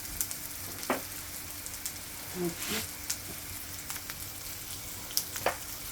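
Food sizzling as it fries in a pan on the stove, a steady hiss broken by a few sharp pops and clicks.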